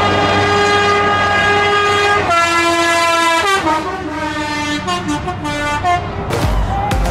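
A truck's loud air horn blowing a chord of several notes. It is held, then drops a step in pitch about two seconds in, followed by a run of shorter notes that change pitch. Near the end, music with a heavy bass beat comes in.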